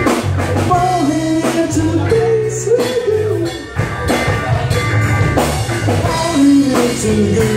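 Three-piece rock band playing live: electric guitar, electric bass and drum kit.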